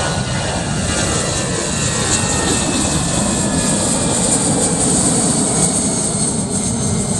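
Jet engines of an Allegiant Air Airbus twinjet at takeoff power as it climbs out: a steady loud rumble and hiss, with a faint whine falling in pitch early on as the plane passes.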